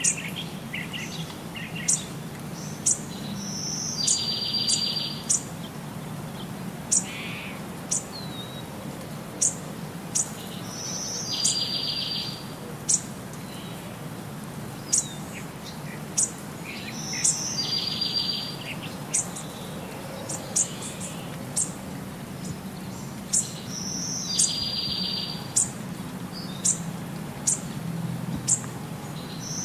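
Birds chirping: short, sharp high chirps about once a second, and every six or seven seconds a buzzy high trill lasting about a second, over a low steady hum.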